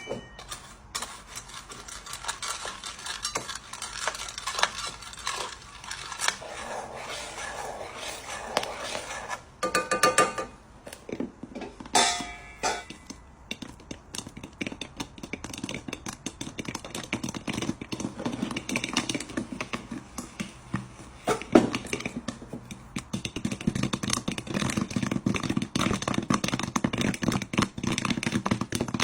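A utensil scraping and clinking in a pan of popcorn kernels cooking in oil, sugar and chocolate. There are two short pitched sounds about a third of the way in. Quick pops then grow denser through the second half as the kernels start popping.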